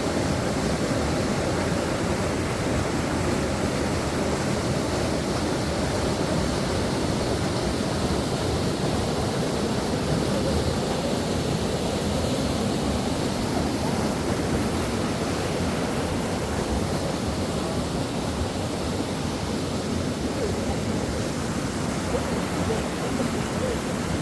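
Valley stream water rushing steadily over rocks, a constant roar without change.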